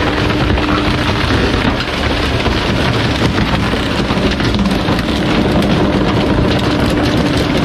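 Bulk-waste truck running: a loud, dense, steady noise with a thin whine that drops away about a second in and comes back near the end.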